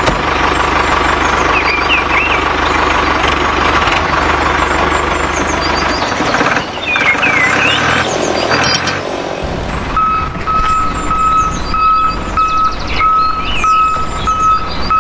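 A vehicle engine runs with a low, steady hum, while birds chirp. From about ten seconds in, a regular beeping comes in at about two beeps a second, like a reversing alarm.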